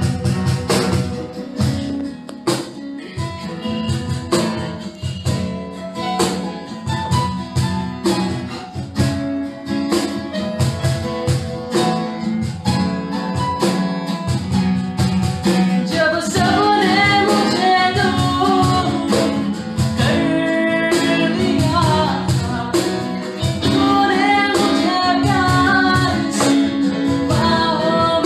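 Live worship song on strummed acoustic guitar, a cajon beat and keyboard. A man's singing voice comes in about halfway through.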